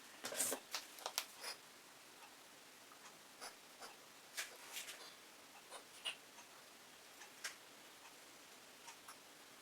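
Faint, scattered clicks and light taps from handling paint bottles and painting tools while adding acrylic paint to a canvas, with a quick run of clicks in the first second or so, then single ones every second or so.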